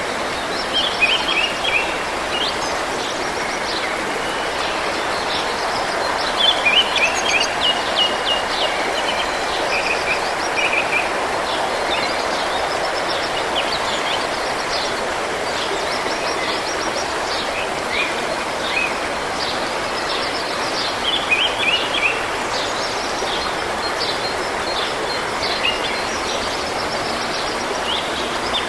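Forest stream running steadily, with small birds chirping and singing short, repeated high phrases over it. The birdsong is busiest a few seconds in and again past the middle.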